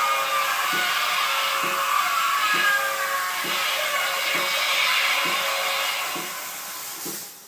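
Animated electric-chair Halloween prop running: an electric buzzing effect with low knocks about once a second as the figure jolts in the chair. The buzzing fades near the end.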